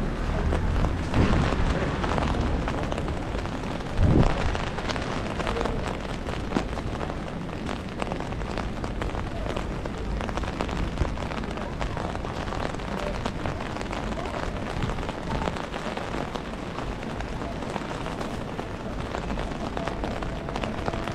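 Steady rain falling on a city street, a constant hiss with many small drops ticking. There are two brief louder low thumps, about one and four seconds in.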